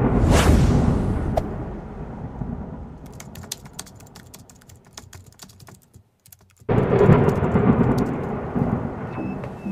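Logo-intro sound effect: a deep thunder-like rumble with a quick rising whoosh at the start, fading into sparse crackling clicks. A second loud rumble hits about seven seconds in and dies away as a few music notes begin near the end.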